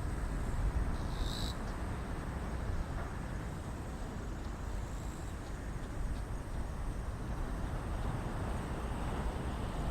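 Low, steady rumble of a Boeing 777-200ER's jet engines on final approach with its landing gear down. A brief high chirp, like an insect, sounds a little over a second in.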